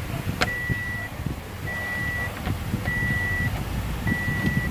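An electronic warning beeper sounding four evenly spaced high beeps, each about half a second long, about one every 1.2 seconds, over a low rumble with a few sharp knocks.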